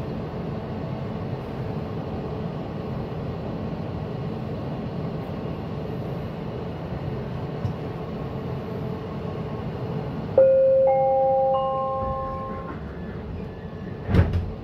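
SkyTrain car humming steadily while stopped at the platform. About ten seconds in, a three-note rising chime rings out, the door-closing warning before departure. A sharp knock follows near the end.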